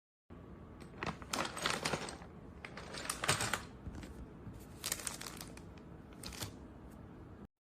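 Typing on a mechanical keyboard fitted with XDA-profile PBT keycaps: quick runs of key clicks and clacks in several short bursts, the busiest about a second in and around the middle.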